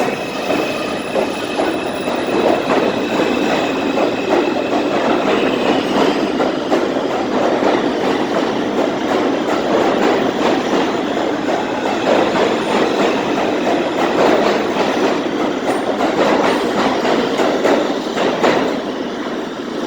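R142 subway train running along the track, a steady loud rumble with clattering wheels on the rails.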